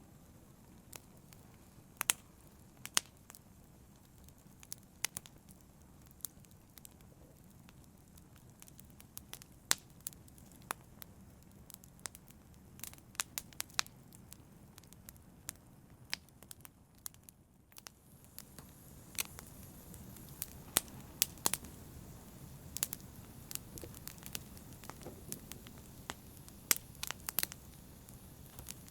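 Wood fire burning in a fireplace, crackling with irregular sharp pops over a soft rush of flames. There is a brief hush about two-thirds of the way through, after which the flame rush is a little louder.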